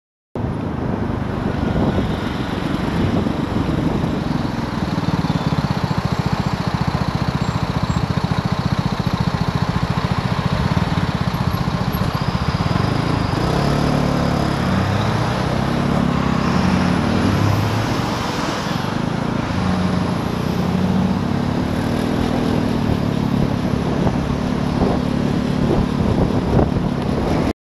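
Vespa GTS 250 scooter's single-cylinder four-stroke engine running in city traffic, mixed with steady wind and road noise on the camera microphone and the sound of surrounding cars and a bus. In the second half the engine pitch rises and falls as the scooter creeps behind the bus and pulls away.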